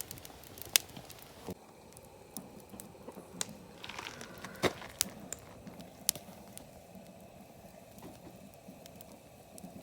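Wood campfire crackling, with sharp, irregular pops every second or so over a faint hiss.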